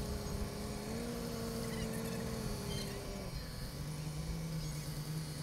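A boat engine running at low speed with a steady hum. Its pitch rises slightly about a second in, then drops lower about three seconds in, as the throttle is eased back.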